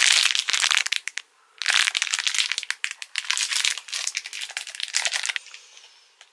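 Plastic sweet packaging crinkling and crackling as it is torn and wrestled open, in two long stretches with a short break about a second in, dying away near the end.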